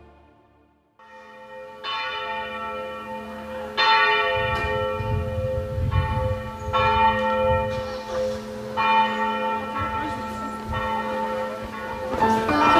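Church bells ringing: a run of strokes every second or two, each ringing on over a steady hum.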